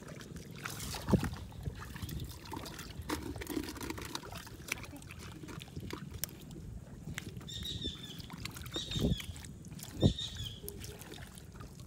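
A hand and a stick digging and poking in wet tidal mud: squelching, wet clicks and a few soft thuds. A few short high chirps come about two-thirds of the way in.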